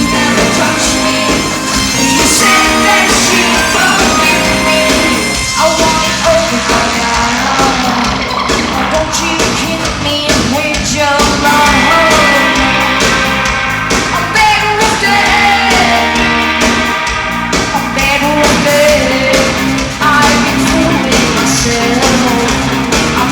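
A rock band playing live through a concert PA, with drums, bass, guitar and synth and a voice singing or shouting over them; the sound is loud, with a steady beat.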